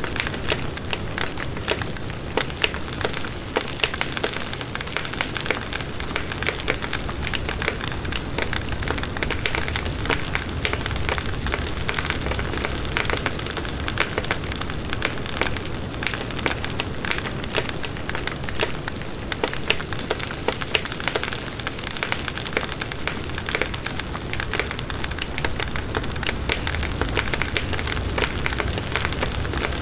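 Bonfire burning with a dense, steady crackle of many small pops over a low rumble.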